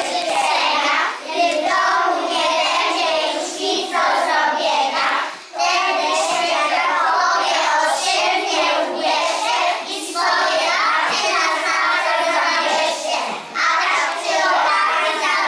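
A group of young children singing together in chorus, phrase after phrase, with short breaths between phrases about every four seconds.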